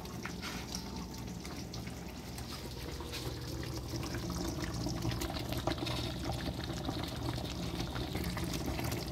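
Pot of fish sancocho broth simmering on the stove, a steady bubbling of liquid, with a few light clicks of a knife as the chopped herbs are moved from the cutting board into the pot.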